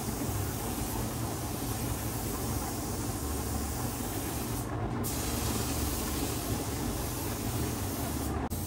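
Automotive paint spray gun hissing steadily as paint is applied, over a low steady rumble. The hiss cuts out briefly twice, about halfway through and near the end, as between passes.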